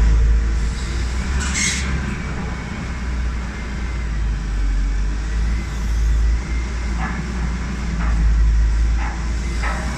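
A wheel excavator's diesel engine running with a steady low rumble. A brief sharp noise comes about a second and a half in, and a few more short noises come in the second half.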